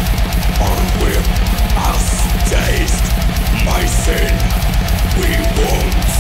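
Heavy metal band playing loud: distorted guitars and bass over rapid, even kick-drum beats.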